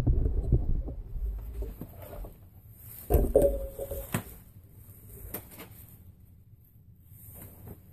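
Braiding strands of a bronc rein being handled and pulled tight: rustling and brushing of the strands and a jacket sleeve, loudest at the start, then a few light clicks with a short squeak about three seconds in.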